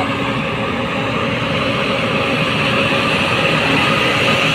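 Heavy diesel engines of an excavator and dump trucks running steadily, a dense mechanical rumble with a few steady tones over it.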